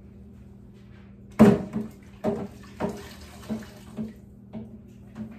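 Kitchen sink tap turned on about a second and a half in, water running and splashing in uneven pulses about every half second as something is rinsed under it.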